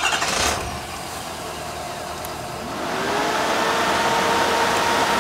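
Compressed air blasting out of the truck-mounted compressor's air tank drain valve, loudest right as it opens, then hissing on steadily as the tank empties. About two and a half seconds in, a machine drone rises in pitch and settles steady, typical of the hydraulic reciprocating compressor cycling back on as tank pressure drops.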